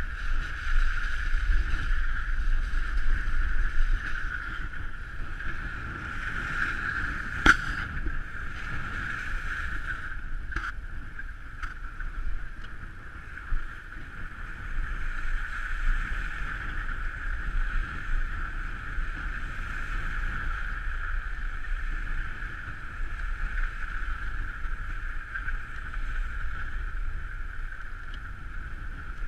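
Steady running noise of a car driving on a snow-packed road, picked up by a camera on its bonnet: wind and rolling rumble with a constant hiss-like band. A sharp knock comes about seven and a half seconds in, and two fainter knocks a few seconds later.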